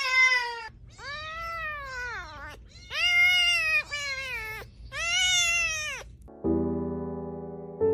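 A cat meowing: four long drawn-out meows, each rising then falling in pitch, the first already under way. Piano music starts near the end.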